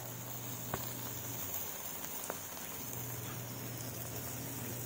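Marinated chicken quarters sizzling on a hot grill: a steady, rain-like hiss with two sharp pops, one about a second in and one past two seconds.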